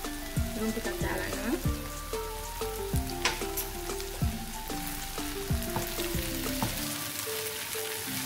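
Sliced capsicum, onions and green chillies sizzling steadily as they fry in oil in a nonstick pan, with a wooden spatula stirring them near the end. Light background music with a plucked melody plays under the sizzle.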